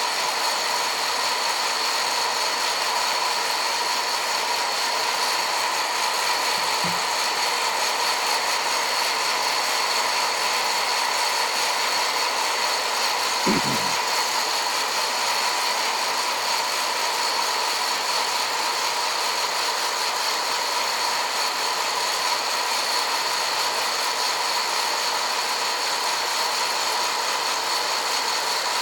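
Hot-air coffee roaster running: a steady fan whir with a high tone above it, and the beans rattling as they tumble in the roasting chamber, with a soft bump about fourteen seconds in. The beans are roasted dark but not yet at second crack.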